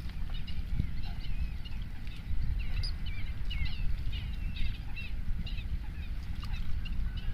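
Small birds calling in short, quick, curving chirps, several a second and irregular, over a steady low rumble of wind on the microphone.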